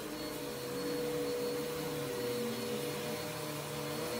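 Upright vacuum cleaner running steadily: an even rush of air with a steady motor hum and a faint high whine.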